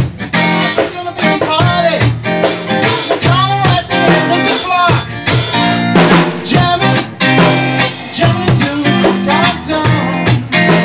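Live rock band jamming: electric guitar playing a melodic line that slides up and down in pitch over steady drums.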